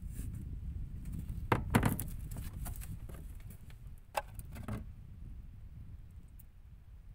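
Knocks and clatter of gear being handled in a wooden boat: a loud cluster of knocks about a second and a half in and two more knocks past the middle, over a low steady rumble.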